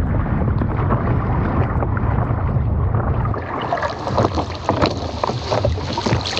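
Choppy lake water sloshing and lapping against a camera held at the water's surface, with wind buffeting the microphone in a low rumble. Sharp little splashes come more often from about halfway through.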